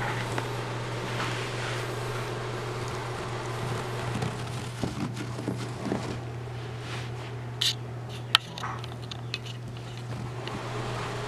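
A steady low hum with scattered soft rustles and small clicks from Yorkshire Terrier puppies shifting about on carpet. A sharp click comes a little past the middle.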